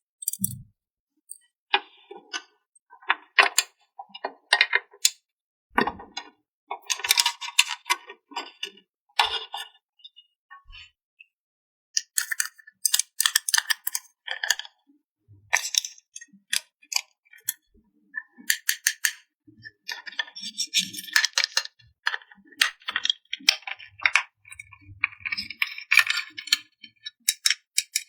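Small plastic toy pieces being handled and set down: irregular clicks, clinks and clatters, with a few short stretches of rustling or scraping.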